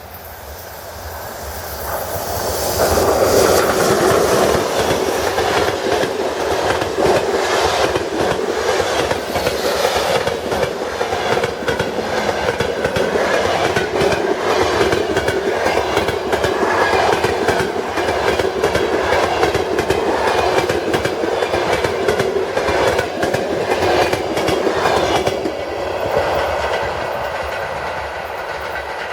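Passenger train hauled by a ChS4 electric locomotive passing at speed. The sound builds over the first three seconds, then the coaches' wheels run on with a long clickety-clack over the rail joints, easing off about 25 seconds in as the last coach goes by.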